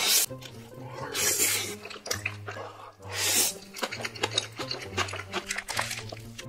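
Loud slurping of black bean sauce noodles, three long slurps with wet chewing and mouth clicks between them. Background music with a repeating bass line plays underneath.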